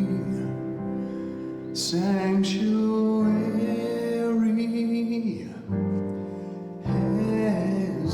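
Slow devotional song: long sung notes that slide between pitches over instrumental accompaniment, with breaths between phrases about five and a half and seven seconds in.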